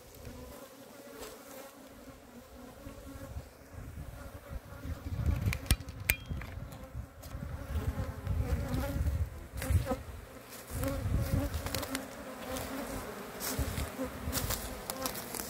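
Italian honeybees buzzing over an open hive, a steady hum, with low rumbling and a few sharp clicks.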